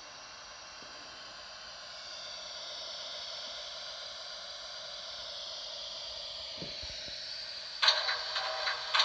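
A steady hiss, a little louder from about two seconds in; near the end a rapid, irregular mechanical clicking and clattering starts and is the loudest sound.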